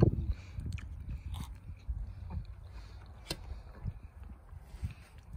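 Wind buffeting the microphone as an uneven low rumble, with a few faint clicks.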